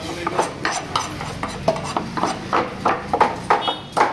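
Large knife scraping the scales off a whole fish in rapid, rhythmic strokes against a wooden block, about three to four strokes a second.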